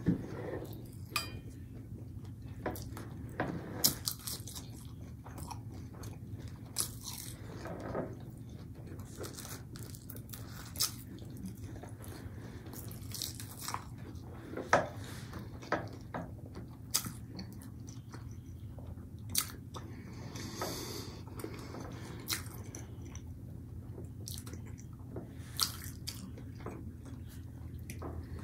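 Close-miked chewing and biting of breaded fish sticks: irregular crunches and mouth clicks, a few louder bites standing out, over a steady low hum.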